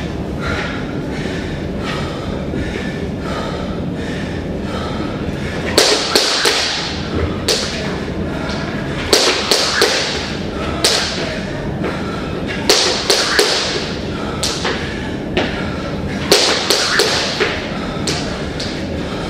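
Clusters of sharp thumps and taps, a few at a time and several seconds apart, over a steady low hum.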